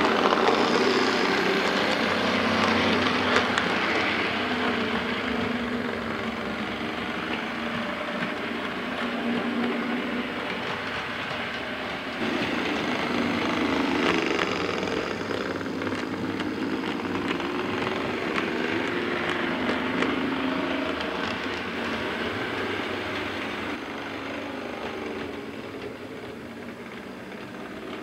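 OO gauge model Class 35 Hymek diesel locomotive and freight wagons running on the layout's track: a steady electric motor hum that wavers a little in pitch, with wheel rattle and light clicks over the rail joints.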